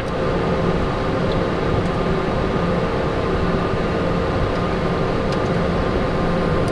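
Cockpit noise of a Cessna Citation Sovereign during takeoff, its twin Pratt & Whitney Canada PW306 turbofans at takeoff power: a steady rush of noise with a few constant humming tones.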